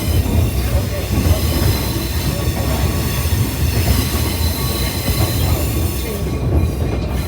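Passenger railcar rolling along the track: a steady low rumble with a faint, thin high whine over it.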